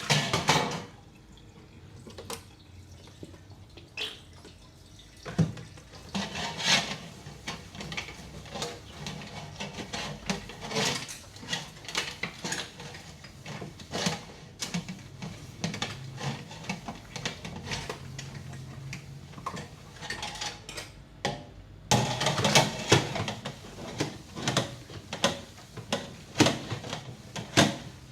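Dishes and cutlery being washed by hand in a sink: irregular clinks and knocks of crockery and utensils with splashing and dripping water. A busier, louder stretch of clatter and splashing comes about three-quarters of the way through.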